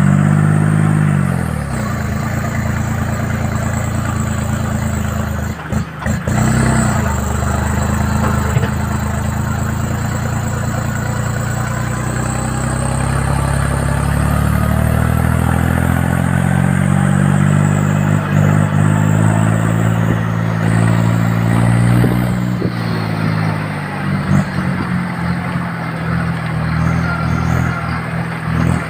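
Tractor engine running steadily under load, its pitch dropping near the start, rising in the middle and easing off again near the end.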